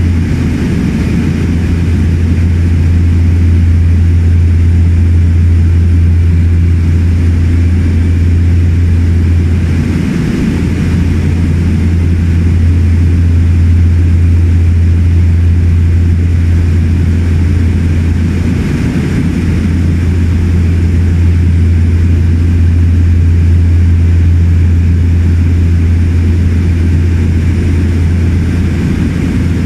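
Cabin noise of a de Havilland Twin Otter in flight: its two turboprop engines and propellers give a loud, steady low drone, heard from inside the unpressurised cabin.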